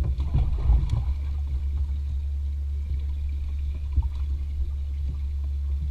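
Boat noise: a steady low rumble with faint water sounds.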